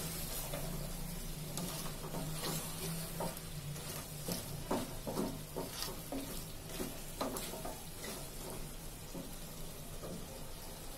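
A wooden spatula stirs and scrapes chicken pieces around an aluminium pot while the spiced masala sizzles as it fries down: the meat is being braised in its spices (koshano). The scraping strokes come thickest in the middle and thin out toward the end.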